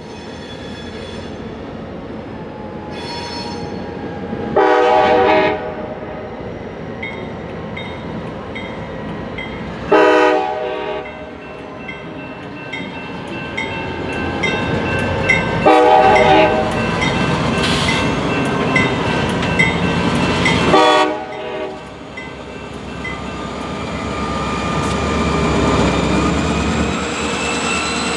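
A diesel locomotive's multi-tone air horn sounds four blasts a few seconds apart as the train approaches, the third held longest. Under them is a rumble that grows toward the end.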